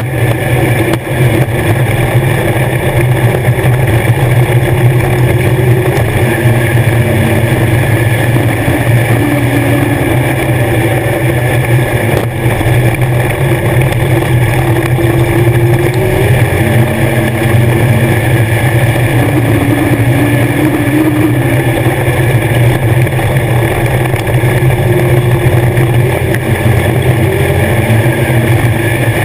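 Legends race car's Yamaha four-cylinder motorcycle engine running hard and loud, heard from inside the cockpit. The engine note stays steady, rising and dipping slightly now and then.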